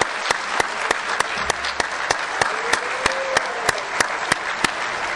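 An audience applauding, with one nearby pair of hands clapping steadily at about three claps a second over the crowd.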